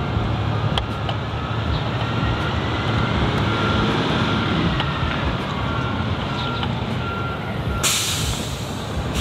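A large truck's engine running with a steady low rumble, then a sharp hiss of air from its air brakes about eight seconds in. A few faint clicks from handling the plastic headlight wiring connectors.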